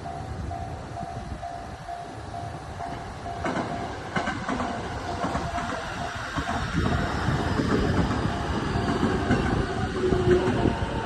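Japanese level-crossing warning bell ringing in a steady repeating 'kan-kan'. About three and a half seconds in, a JR Nambu Line electric train comes through the crossing, its running noise over the rails getting louder toward the end.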